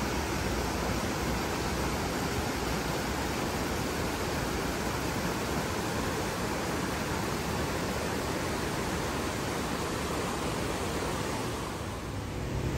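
Steady rushing of white-water rapids in a rocky stream tumbling over boulders. It drops off slightly near the end.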